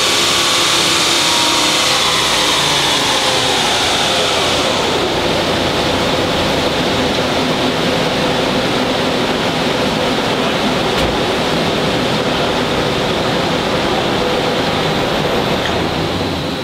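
Car spinning a chassis dyno's rollers in a coast down: the whine of the rollers and drivetrain falls in pitch over the first five seconds, then a steady rushing noise carries on.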